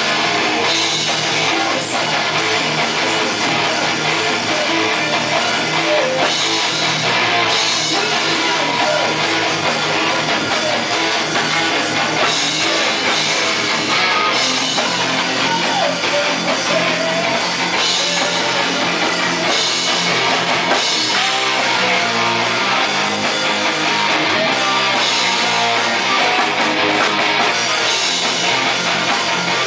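A heavy metal band playing live in a rehearsal room: distorted electric guitars, bass guitar and a drum kit playing together without pause.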